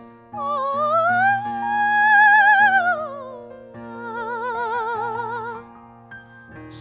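A woman singing long, held notes with a wide vibrato over a steady accompaniment track. The notes swell up and then fall away in three phrases.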